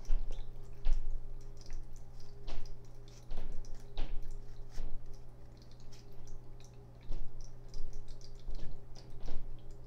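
Light handling noises: irregular clicks and taps, a few each second, over a steady low hum.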